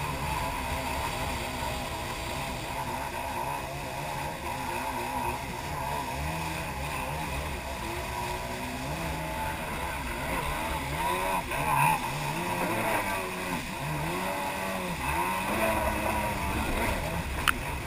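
Jet ski engine running at speed, its pitch rising and falling over and over, over rushing water and wind noise. A single sharp click comes near the end.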